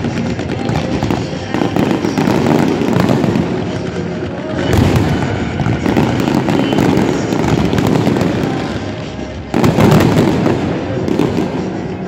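Fireworks display, with aerial shells and ground fountains going off in a dense, continuous barrage. There are two louder surges, about five seconds in and again just before ten seconds.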